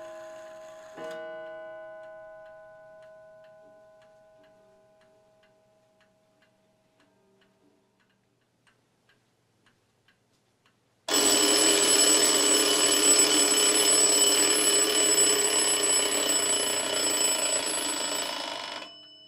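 Early-1900s Seth Thomas clock (89E movement): one stroke of its hour strike rings out and fades over several seconds, then the pendulum ticks faintly about twice a second. About 11 seconds in, the alarm goes off with a loud continuous ringing for about eight seconds and stops abruptly. This shows that the replacement alarm mechanism, with its good spring, works.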